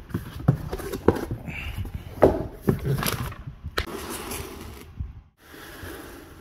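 Cardboard shipping box being opened and handled by hand: flaps rustling and scraping, with several sharp knocks as the boxed clutch kit inside is slid out and set down on a concrete floor.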